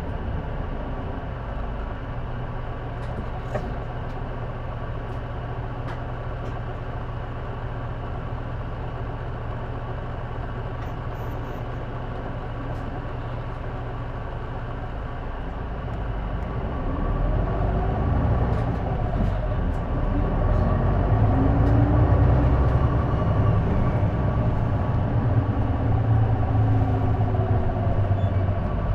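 J-Bus city bus diesel engine heard from inside the cabin. It runs steadily at low speed for a while, then from about halfway through grows louder as the bus pulls away, its pitch rising and falling under load. The bus is known for an unexplained noise that the uploader places somewhere in the exhaust or turbo.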